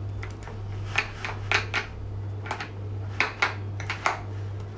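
Light clinks and knocks of kitchenware being handled, about nine short irregular strikes, over a steady low hum.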